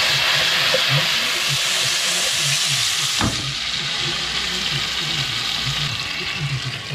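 Tomato wedges, garlic and ginger sizzling in hot oil in a nonstick frying pan, just after the tomatoes go in. The sizzle is loudest at first and slowly eases, with a single knock about three seconds in.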